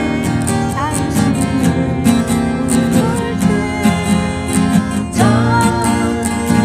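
Two steel-string acoustic guitars strummed in a steady rhythm, with a woman singing the melody over them.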